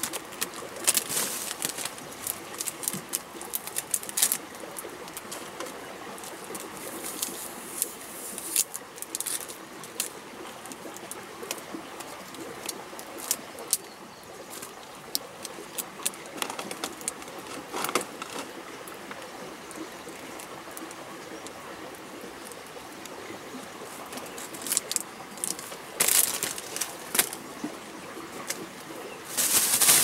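Plastic instant-noodle wrappers and seasoning sachets crinkling and tearing as they are handled, in irregular crackles, with louder bursts of plastic-bag rustling near the end.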